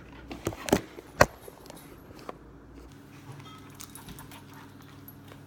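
A few sharp little clicks and clinks, the loudest about a second in, then a faint steady hum.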